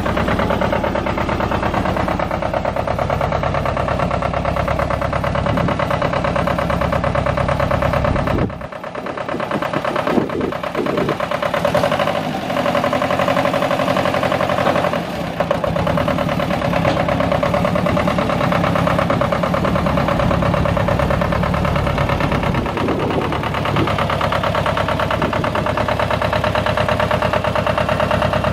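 Goldoni Transcar 28RS utility tractor's Lombardini diesel engine idling steadily, with a brief dip and a few clunks about a third of the way in.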